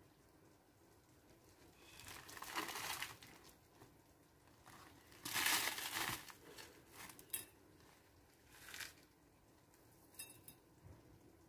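Dry crinkling rustles in several short bursts, the loudest about two and five seconds in: crispy fried shallots being scooped with a spoon and scattered onto food.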